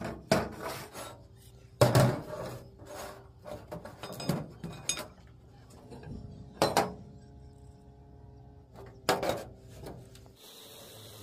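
Irregular knocks and clanks of metal workpieces being handled and set down, several followed by a brief ringing tone. About ten seconds in they stop and a steady hiss takes over.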